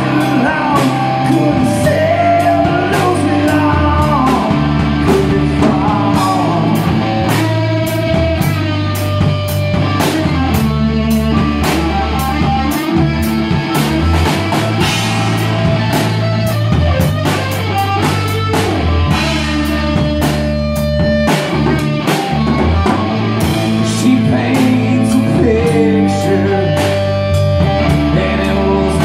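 A rock band playing a song: electric guitar, bass and drum kit, with a singer's voice.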